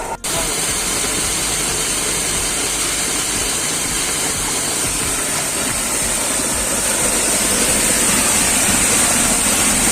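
Steady rush of water driving the paddle wheel of a traditional water mill (ghatta): the stream jet spraying onto the turning wheel beneath the mill.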